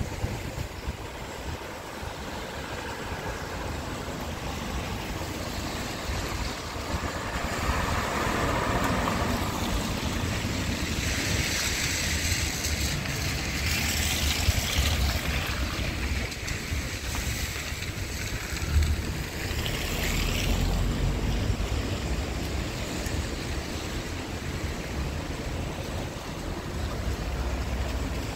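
Wet-street traffic: tyres of passing cars hissing on the rain-soaked road, swelling and fading as several cars go by, with a steady low rumble of wind on the microphone.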